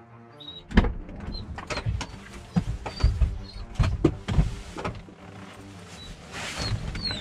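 Knocks, thuds and rustling from a person moving in and out of a van's driver's seat and handling bags and gear in the cab, with a longer rustle near the end.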